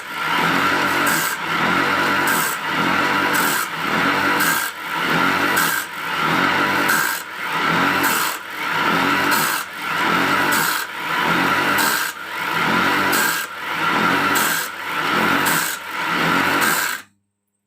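Homemade wood lathe driven by a converted water-pump motor, a tool scraping the spinning wood in repeated passes, swelling and easing about once a second. It cuts off suddenly near the end.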